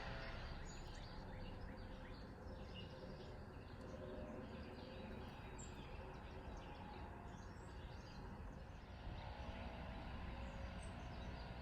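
Outdoor ambience: a steady low background rumble with faint, scattered chirps of small birds.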